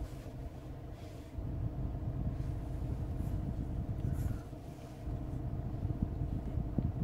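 Steady low rumble and faint hum inside a Hyundai Tucson's cabin, with a couple of faint ticks about a second and four seconds in.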